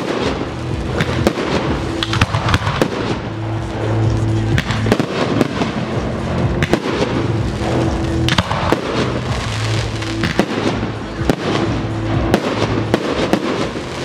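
Professional aerial fireworks shells bursting in quick succession, with sharp bangs and crackling, over music with held low notes.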